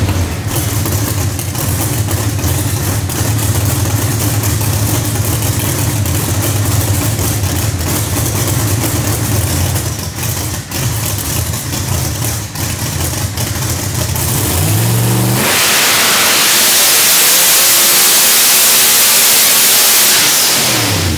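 Supercharged Noonan 565ci Hemi drag engine running at idle for about fourteen seconds. It then revs up sharply and is held at high rpm, much louder, for about five seconds in a hub-dyno pull, and drops back off near the end.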